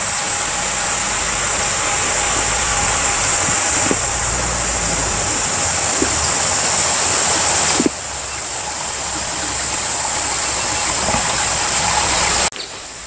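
Shallow river water running over stones, a steady even rush, with a high insect drone above it. The sound dips suddenly about eight seconds in and falls away near the end.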